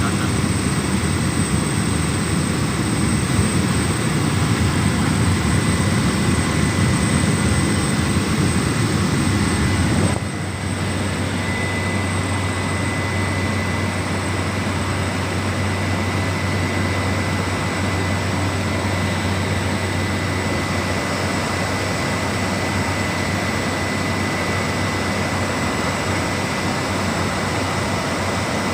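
Small propeller aircraft's engine and propeller running steadily, heard from inside the cabin. About ten seconds in, the sound changes abruptly: it gets slightly quieter and a steady low hum comes in.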